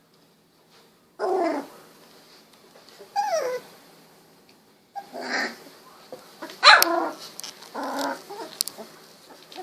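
Sixteen-day-old golden retriever puppy giving five short yelps and whines, some falling in pitch, the sharpest about two-thirds through.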